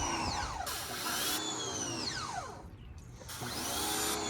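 Pressure washer motor winding up and down in pitch in repeated bursts, about every two and a half to three seconds, with short bursts of spray hiss.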